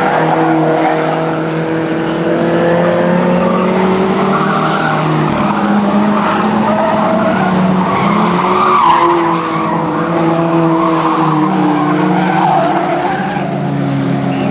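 Several historic stock cars racing together, their engines running hard and rising and falling in pitch as they lap the oval, with tyres skidding on the track surface.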